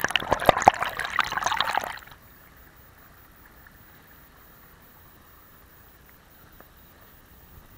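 Water splashing and trickling with sharp clicks, cutting off abruptly about two seconds in; after that only faint outdoor background.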